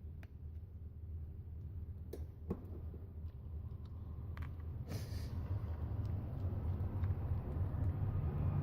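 A low rumble growing steadily louder, with a few small sharp clicks scattered through it.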